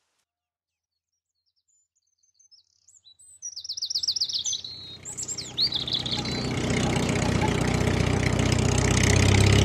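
Silence for about two seconds, then birds chirping, with a quick trill. A tractor engine then comes in under them, running steadily and growing louder toward the end.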